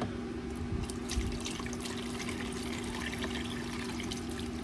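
Cooking liquid, a plain chicken broth, sloshing and trickling with scattered light clinks, over a steady low electrical hum.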